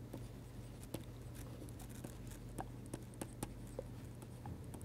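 Faint, scattered taps and scratches of a pen stylus writing on a tablet screen, over a steady low hum.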